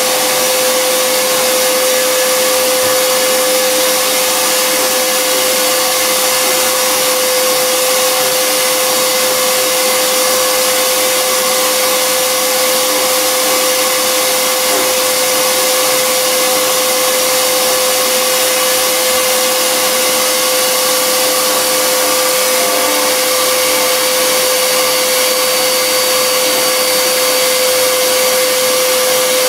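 Harbor Freight 14-gallon, 6 HP shop vac running steadily: a loud, even rush of air with a steady hum, mixed with the CNC router spindle cutting wood.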